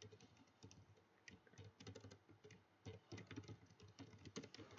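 Computer keyboard typing: a run of faint, irregular key clicks.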